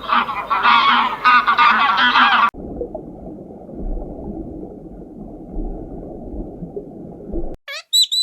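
A flock of geese honking in many overlapping calls, cutting off abruptly about two and a half seconds in. About five seconds of muffled low rumbling noise follow, then a few short high calls near the end.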